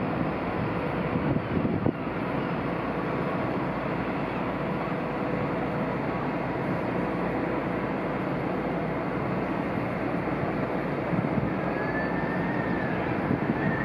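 Steady low rumble of the Celebrity Eclipse cruise ship's machinery and thrusters as it manoeuvres away from the pier, its wash churning the water.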